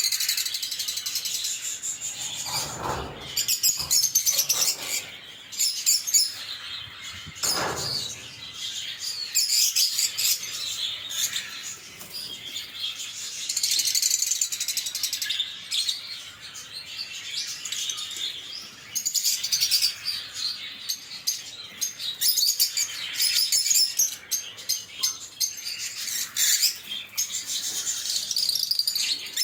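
Lovebirds chirping in quick, high-pitched bursts of chatter that rise and fall in loudness, with a couple of duller, lower noises about three and seven seconds in.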